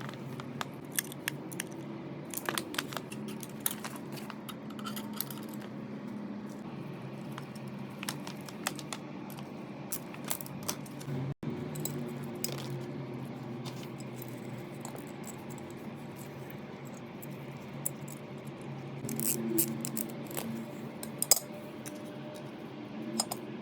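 Small metal parts and tools clinking and tapping against each other in irregular clicks, over a steady low hum. There is a denser run of clinks about twenty seconds in.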